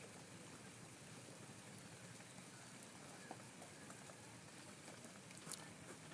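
Faint scratching of a pen writing on paper over a low hiss, with a small tap about five and a half seconds in.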